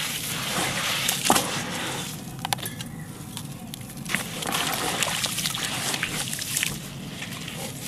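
Crumbled black concrete being mixed with water by hand into a wet paste: gritty sloshing and squelching with scattered sharp crunchy clicks, the loudest about a second in.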